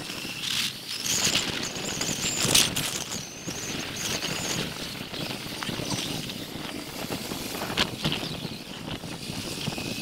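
Wind buffeting the microphone of a moving vehicle, with steady road noise and scattered sharp knocks, the loudest about two and a half seconds in.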